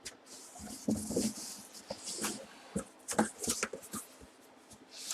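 Handling noises: irregular crinkling and rustling with a few light clicks and soft knocks, as of a helmet and its packaging being handled.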